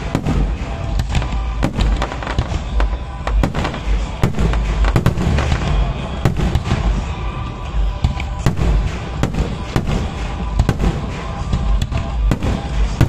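Aerial fireworks display: shells bursting in quick succession, with many sharp bangs and crackles every second.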